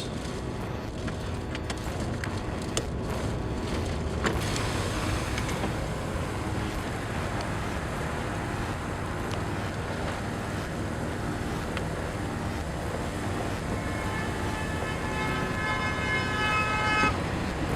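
Steady rumbling road and wind noise of a car driving, with a few clicks in the first seconds and a steady high-pitched tone joining near the end.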